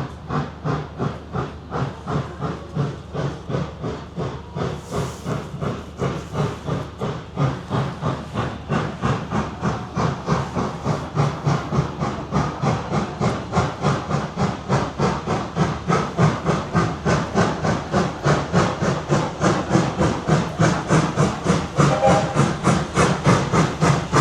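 Steam locomotive chuffing in an even rhythm of about two to three beats a second, with steam hissing, growing louder toward the end.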